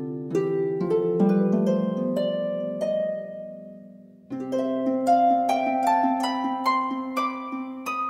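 Instrumental background music: a quick run of ringing notes over held low notes that dies away near halfway, then a new phrase starts just after.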